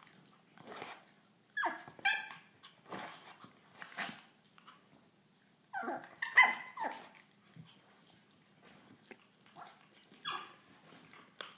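Small dogs yapping and whining in short bursts, about two seconds in and again around six seconds, with a fainter one near the end: a squabble over a stolen bully stick.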